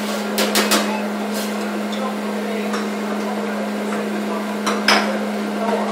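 Metal utensils clinking against a teppanyaki griddle: a quick run of three clinks in the first second, a single clink a little later and a louder one near the end, over a steady hum and restaurant background noise.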